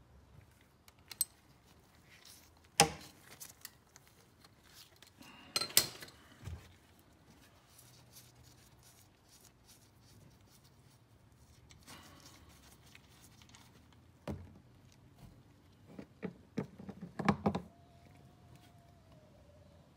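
Metal tool clinks and scrapes as a 6 mm Allen key is fitted to and turns a steel oil drain plug set in a plastic skid plate: scattered sharp clanks with quiet gaps between them, and a quick cluster of them near the end.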